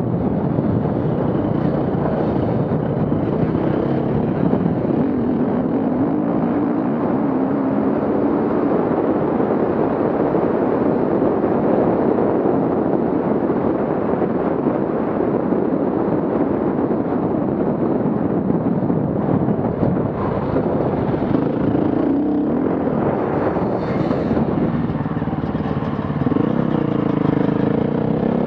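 Off-road vehicle engines running under load over a steady rush of noise; near the end an engine revs up and down.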